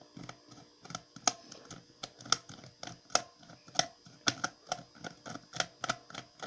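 Flat-head screwdriver turning a small screw in a plastic toy remote control's battery cover: a run of sharp little clicks, sparse at first and then about two to three a second.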